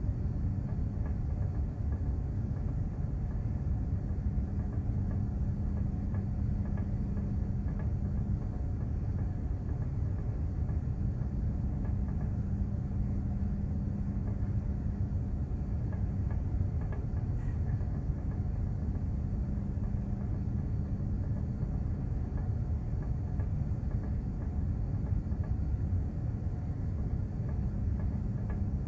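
Container ship under way: a steady low rumble with a constant low hum running through it, unchanging throughout.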